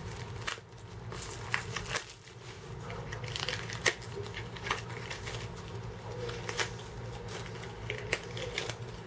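Cellophane wrapping crinkling and a small cardboard blind-box package being torn open by hand: a run of irregular crackles and rustles, with one sharp snap about four seconds in.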